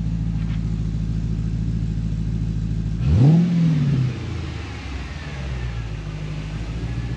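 2006 Chrysler 300C SRT8's 6.1-litre Hemi V8 idling steadily, with one quick throttle blip about three seconds in: the revs rise and fall within about a second. It then settles right back to a steady idle of around 800 rpm, with no surging now that the catch can and loose throttle body have been dealt with.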